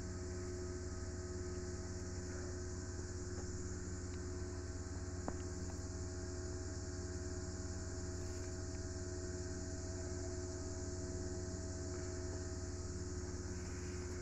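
Steady outdoor background of a constant high hiss over a low steady hum, with one faint click about five seconds in; no clear chewing or gnawing stands out.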